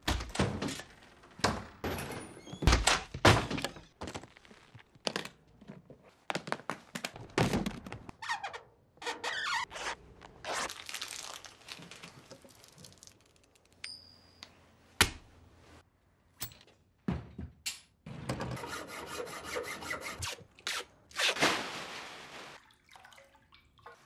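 A run of close film sound effects with no music: many separate sharp knocks and thuds, with handling sounds and two longer stretches of hiss.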